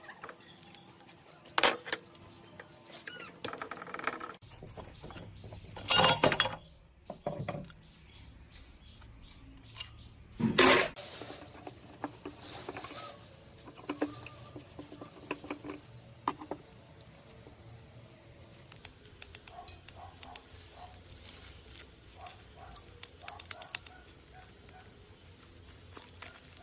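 Small metal parts of an old rusted cutting machine clinking and being handled during disassembly. Three loud clatters, about 2, 6 and 10 seconds in, stand out among many light clicks and knocks.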